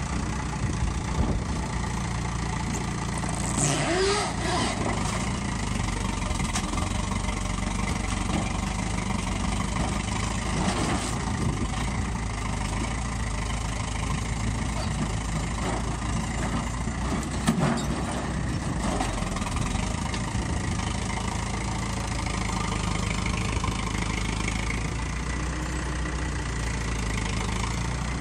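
Farm tractor engine running steadily while its front loader bucket works against a scrap walk-in cooler, with a few sharp metal bangs and crunches: about 4 seconds in, again around 11 seconds, and loudest near 17 seconds.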